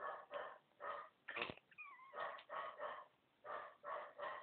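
Faint, short repeated vocal sounds, about two a second, with a brief wavering squeak about two seconds in.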